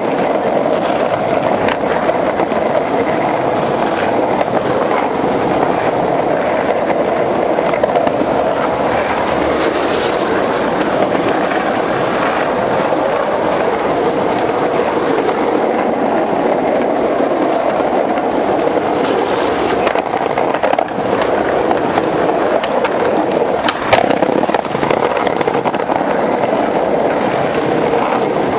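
Skateboard wheels rolling over sidewalk pavement: a steady rolling noise from several boards, broken by a few sharp clicks as the wheels cross cracks and joints, the loudest near the end.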